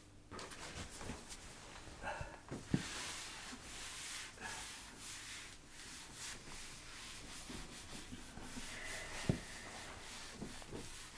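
Whiteboard being wiped with a hand eraser: rapid rubbing strokes over several seconds, with a couple of sharp knocks.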